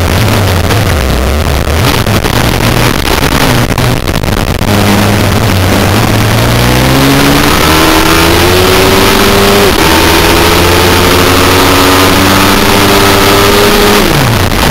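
Pit bike engine at race pace, recorded onboard with wind rushing over the microphone. After a rough few seconds the engine note climbs steadily under acceleration, dips slightly a little before ten seconds, holds high, and then drops sharply as the throttle closes near the end.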